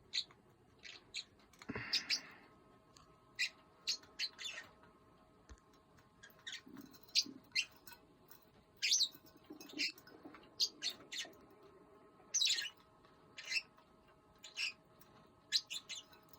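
A pet bird making a string of short, high chirps and clicks at irregular intervals, the noises its owner calls its snoring.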